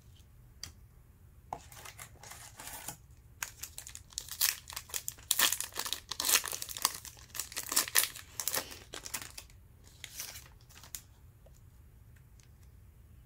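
A Panini Hoops trading-card pack's wrapper being crinkled and torn open, a run of irregular crackles that is loudest in the middle few seconds.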